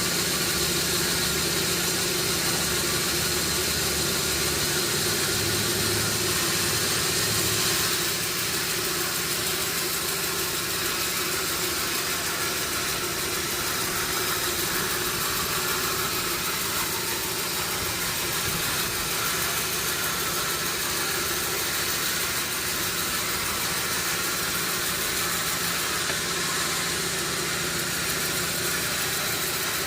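Sawmill machinery running steadily: a constant motor hum under a broad hiss, a little quieter after about eight seconds.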